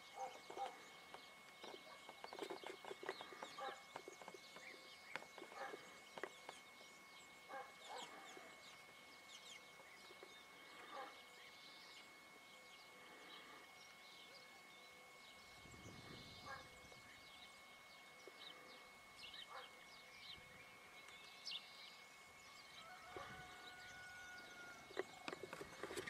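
Near silence: faint scattered ticks and rustles over a faint steady high whine, with one short whistled note near the end.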